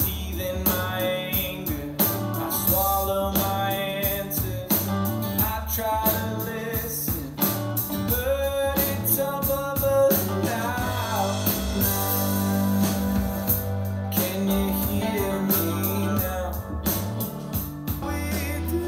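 Guitar-driven rock song with drums and bass playing from a Blitzwolf AirAux AA-SAR1 soundbar over Bluetooth, as a demonstration of how the soundbar sounds.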